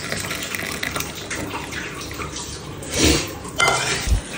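Tea poured from a steel saucepan into a ceramic mug, a steady trickle of liquid. Near the end come a louder knock and a short ringing clink.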